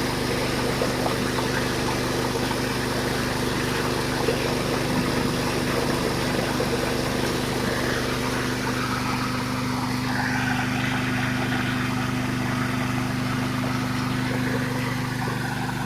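Engine-driven coffee hulling machine running at a steady speed, a constant drone with a noisy rush over it as dried coffee is hulled.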